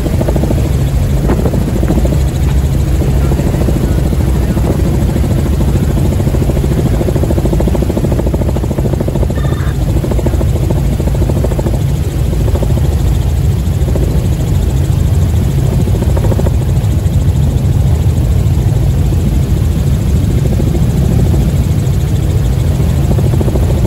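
Helicopter in flight heard from on board: loud, steady engine and rotor noise.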